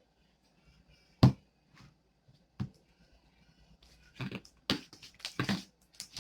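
Objects handled on a table while working with slime: one sharp knock about a second in, a smaller one a little later, then a quick run of clicks and knocks near the end.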